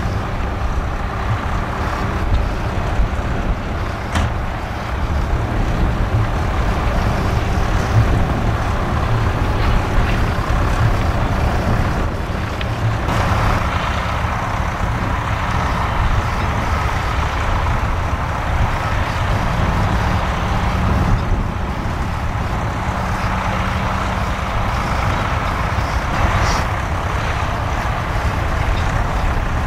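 Fendt 724 tractor engine running steadily under load while pulling a six-furrow reversible plough. About 13 seconds in the engine note changes as the tractor lifts the plough out at the headland.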